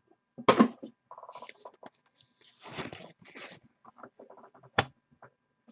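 Irregular rustling and scratching from packaging and hard plastic graded-card holders (PSA slabs) being handled, with scattered small clicks and one sharp click near the end.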